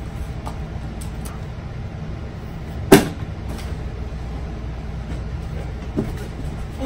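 A steady low rumble of room noise, with one sharp, loud thump about three seconds in as a person drops onto a leather couch, and a smaller knock near the end.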